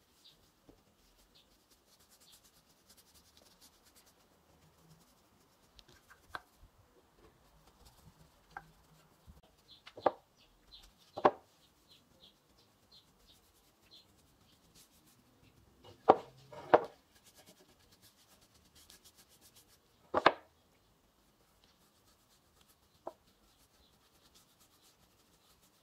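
A wooden bracket knocking against a plywood work board as it is set down and turned over while being stained, about six sharp knocks with the loudest pair about sixteen seconds in. Between the knocks there is faint rubbing of a paintbrush on the wood.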